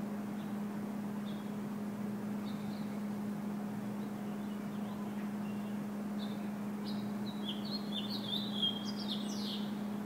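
Small songbirds chirping: scattered short chirps, then a quick run of song in the last three seconds, over a steady low hum.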